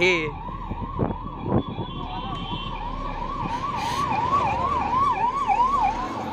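Ambulance siren yelping, its pitch sweeping up and down about twice a second and growing louder as the ambulance approaches and passes close by. Two sharp knocks come about a second in.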